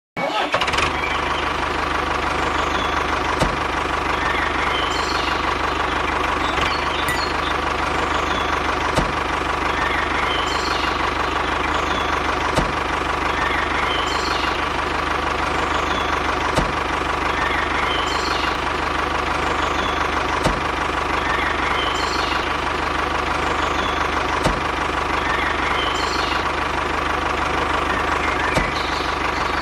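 A steady engine-like running drone with a constant mid-pitched hum, punctuated by a sharp click about every two seconds.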